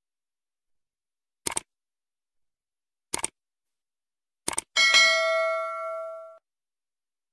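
Subscribe-button animation sound effects: three short mouse clicks about a second and a half apart, then a bell ding that rings out and fades over about a second and a half.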